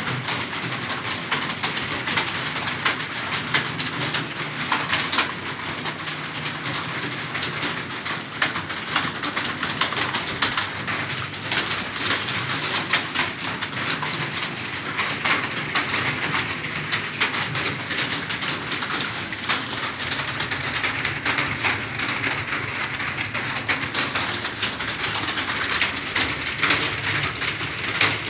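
Fast, continuous typing on a computer keyboard: a rapid, uneven patter of key clicks.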